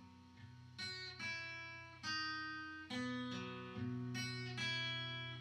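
Acoustic guitar playing chords, a new chord struck every half second to a second, each ringing out and fading before the next.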